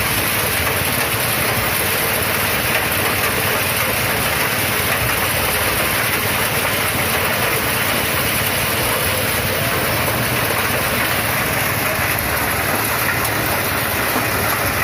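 Engine-driven corn sheller running steadily, an even, unbroken mechanical noise.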